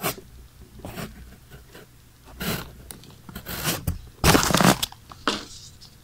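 Plastic MagSafe power adapter being handled and turned over on a wooden tabletop, giving a series of short rubbing and scraping noises. The longest and loudest comes about four seconds in.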